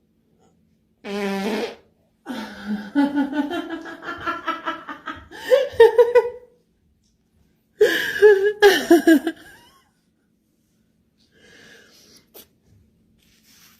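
A person farting: a short pitched fart about a second in, then a long, fluttering one lasting about four seconds, and another wavering burst about eight seconds in.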